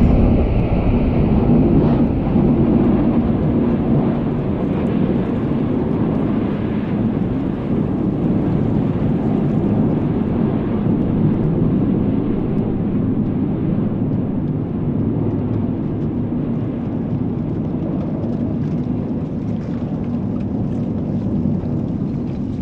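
A steady, fairly loud low rumble with no clear pitch, with faint light ticks over it in the last few seconds.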